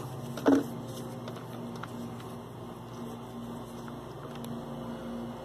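Faint handling of a reel tape measure, the tape pulled and fingered, over a steady low hum. One short, sharp sound about half a second in is the loudest thing.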